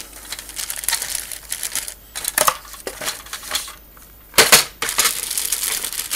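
Clear plastic bags holding plastic model-kit sprues crinkling and crackling as they are handled and lifted out of the kit box, in uneven bursts, loudest about two-thirds of the way in.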